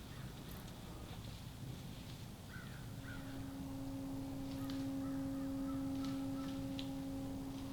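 Outdoor ambience with a few short bird calls. From about three seconds in, a steady low hum from an unseen source comes in and holds.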